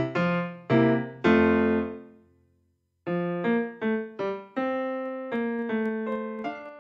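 Background piano music: a run of notes ends on a chord that fades out to silence about two and a half seconds in, and the piano starts again about three seconds in with a gentle melody.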